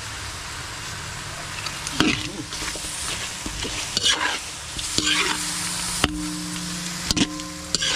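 Softshell turtle meat sizzling in a large steel wok while a long metal spatula stirs it. The spatula scrapes and clacks against the pan several times from about two seconds in.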